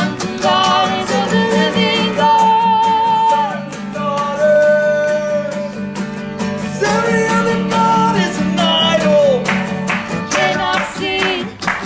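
Live worship music: a singer holding long, wavering notes without clear words over steady acoustic guitar strumming.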